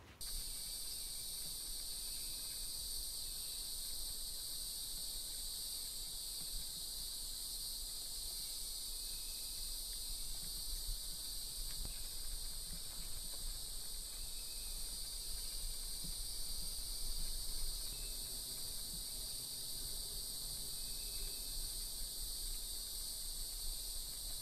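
Steady, high-pitched chorus of insects in summer woods: several shrill tones layered together, unbroken.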